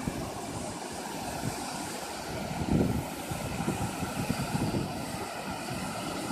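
Steady rushing noise with gusts of wind buffeting the microphone, the strongest gust about three seconds in.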